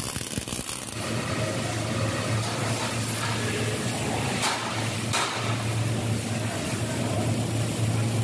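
MIG welding on steel grating bars: a steady electrical hum under continuous crackle and hiss from the arc, with two brief louder flare-ups about four and a half and five seconds in.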